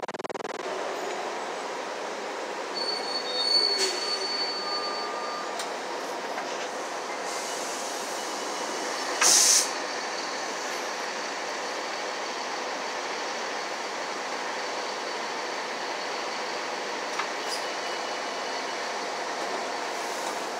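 Steady running noise inside a city transit bus on the move. A brief high squeal sounds about four seconds in, and a short, loud hiss a little after nine seconds.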